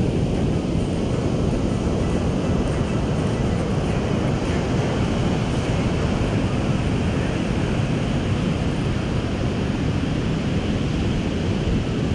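Ocean surf making a steady rush, with wind buffeting the microphone.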